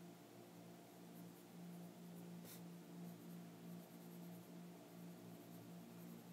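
Faint scratching of a Faber-Castell Polychromos coloured pencil shading on paper, in short strokes that come and go, over a steady low hum. There is one light tick about two and a half seconds in.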